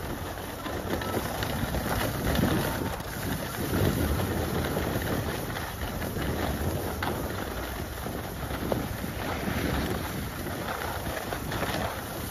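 Skiing downhill on groomed snow: wind rushing over the microphone and skis hissing over the snow, swelling and easing with the turns.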